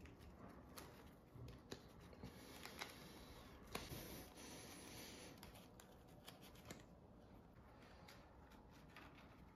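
Near silence with faint, scattered small clicks and rustles, as of something being handled.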